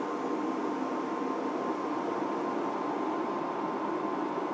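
Induction hob running: a steady fan hum with a faint, steady high tone.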